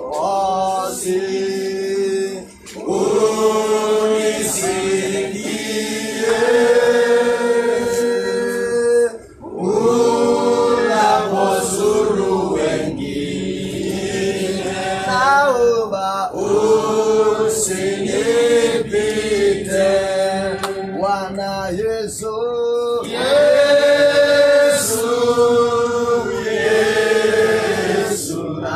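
A group of voices singing a hymn together, with long held notes; the singing breaks off briefly about two and a half seconds in and again about nine seconds in.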